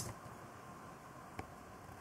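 Faint plastic taps as a toy fishing net is set down on a tabletop: a sharp click at the start and a smaller one about a second and a half in, over a low steady hiss.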